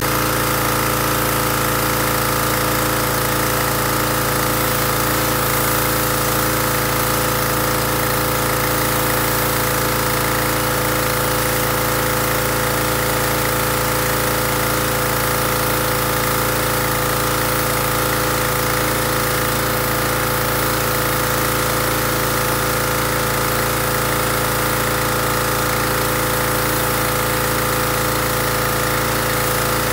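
Pressure washer running steadily, its motor and pump holding one even pitch under the hiss of the high-pressure water jet spraying the house siding.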